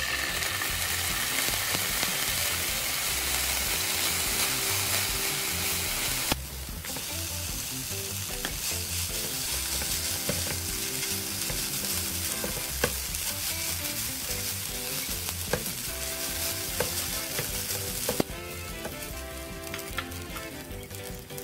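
Soy sauce sizzling loudly in a hot frying pan of sliced green onions. About six seconds in it drops to a softer sizzle as rice is stir-fried with a silicone spatula, with occasional sharp taps of the spatula on the pan.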